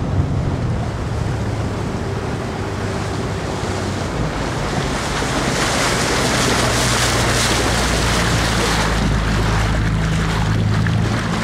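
Motorboat engine running steadily under way, a low drone beneath the rush of water and wind buffeting the microphone; the wind and water noise grows louder about halfway through.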